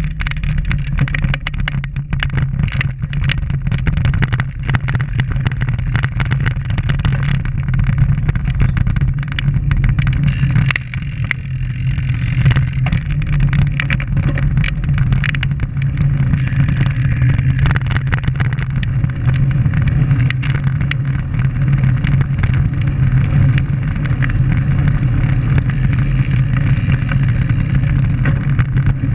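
Steady rush of wind and rumble of tyres on a road bike riding over a rough, cracked lane, picked up by a camera mounted on the bike, with frequent small knocks and rattles as the surface jolts it.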